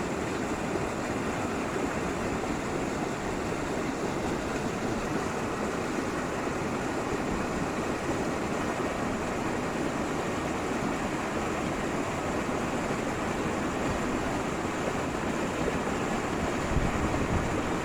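Steady rush of floodwater pouring out of an overflowing farm reservoir over its spillway, swollen by heavy rain. A few low thumps near the end.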